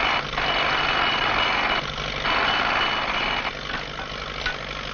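Railway track-maintenance machinery running: a steady, noisy mechanical din with a thin high whine over a low hum. It dips briefly about two seconds in and runs quieter from about three and a half seconds.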